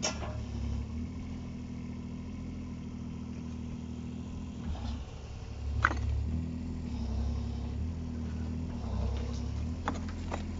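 Mini excavator's diesel engine running steadily, its note dipping briefly about five seconds in, with a few sharp knocks at the start, about six seconds in and near the end.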